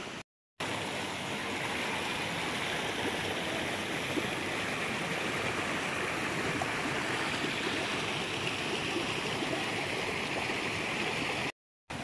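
Creek water flowing in a steady, even rush. It drops out to dead silence briefly just after the start and again just before the end, where the footage is cut.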